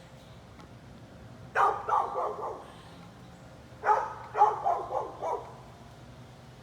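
A dog barking: a quick run of about four barks, then a couple of seconds later a second run of about six.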